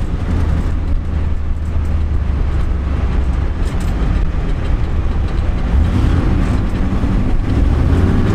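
1991 Chevrolet Camaro driving at a steady speed, heard from inside the cabin: a steady low engine drone under road and wind noise.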